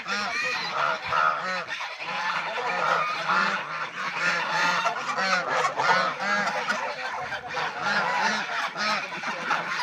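A flock of domestic geese honking, many short calls overlapping without a break.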